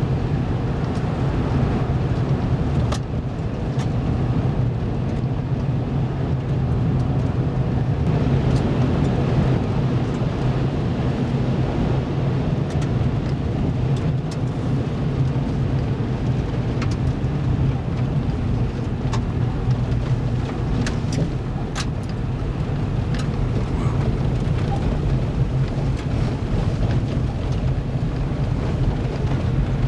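Vehicle driving on a gravel road, heard from inside the cabin: a steady low rumble of engine and tyres, with a few scattered sharp clicks.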